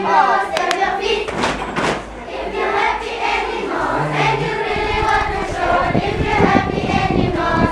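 Music track of a choir singing, many voices together in chorus.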